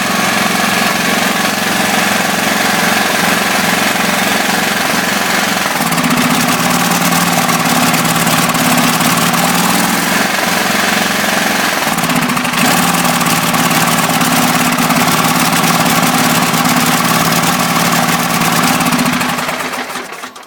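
Small lawn mower engine running steadily on propane sprayed into the top of its carburetor. Its speed rises a little twice, then it dies away just before the end.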